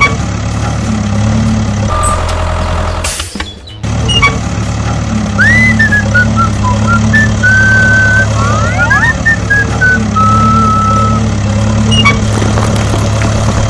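Truck engine sound effect running steadily, dubbed over toy-vehicle play. About two seconds in there is a short warbling beep, then a brief loud burst of hiss. Over the middle, a high whistled melody wanders up and down.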